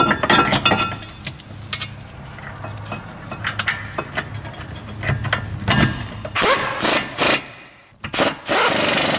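Metal clinks and clicks as a brake caliper bracket and its bolts are handled and fitted, then loud rustling and scraping near the end as a work glove brushes close to the microphone.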